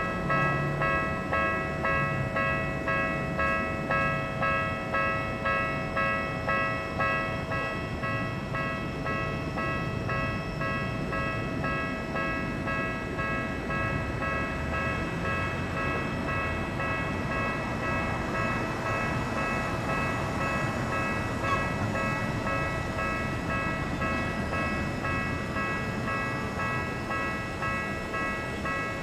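Japanese level-crossing alarm ringing its electronic bell in even, repeated strokes, about two a second. A train passes over the crossing, and its wheels on the rails rumble under the bell.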